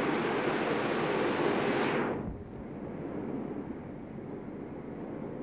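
Steady rushing background noise that cuts off abruptly about two seconds in, leaving a fainter low hum.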